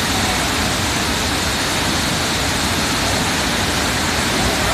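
Waterfall's water pouring down: a loud, steady rush that does not change.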